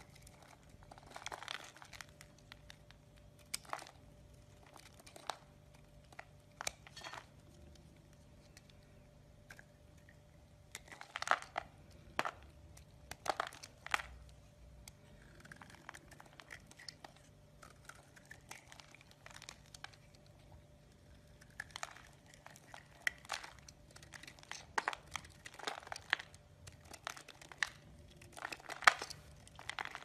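A knife blade cutting into a bar of soap held in the hand, with crisp scrapes and crunches as flakes and chunks break off. The cuts come in irregular clusters with quieter stretches between them.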